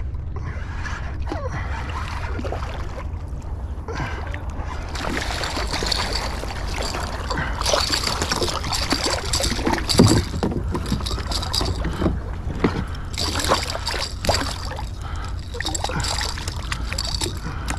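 A hooked striped bass thrashing and splashing at the surface beside a kayak as it is brought to hand. The splashing starts about a third of the way in, with one loud sharp hit a little past halfway, over a steady low rumble.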